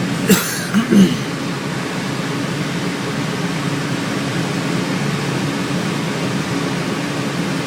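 Steady rush of airflow with a low drone inside a glider cockpit under aerotow, with a sharp click about a third of a second in.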